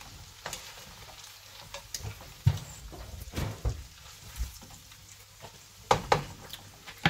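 A wooden spatula and a wire-mesh spider strainer scraping and clicking against a wok while fried chicken pieces are scooped out, over faint sizzling of the hot oil. The scrapes and knocks are irregular, with the loudest about two and a half seconds in and two more close together near the end.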